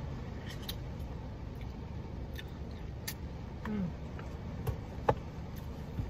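Steady low rumble of heavy rain on a car, heard from inside the cabin, with a few light clicks and scrapes of a plastic spoon in a Blizzard cup and one sharper click about five seconds in.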